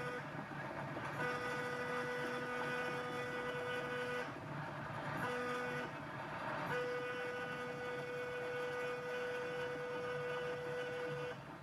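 Milwaukee Road 261 steam locomotive's air horn sounding the grade-crossing signal, long, long, short, long, after the tail of an earlier blast, all on one steady note: the horn is not reaching its full tonal range. Under it runs the steady rumble of the moving train.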